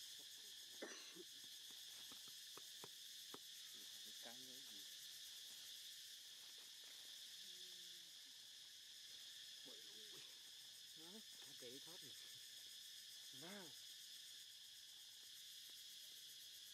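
Faint, steady chirring of insects such as crickets. Over it, a few short, faint calls rise and fall in pitch, and there are some light clicks in the first few seconds.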